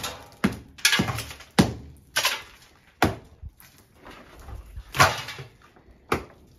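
A hammer chipping old plaster off a brick wall, with about ten irregular blows and pieces of plaster breaking away. The plaster is crumbling right down to the brick.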